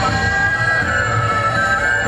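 Music for a group dance: long held melodic notes over a steady low pulse.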